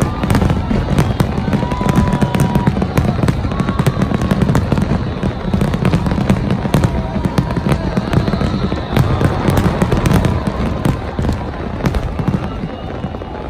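Big fireworks display going off without a break: rapid, overlapping bangs and crackles over a heavy low rumble.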